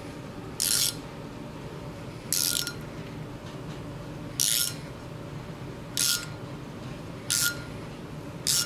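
Hand tap being turned in a T-handle wrench, cutting threads in a drilled steel housing for a grease fitting. Six short metal-on-metal bursts come about a second and a half apart, each ending in a brief squeak.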